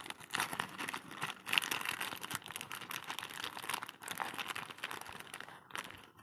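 Plastic courier mailer and a paper invoice crinkling and crackling as the parcel is torn open by hand, an irregular run of crackles that thins out near the end.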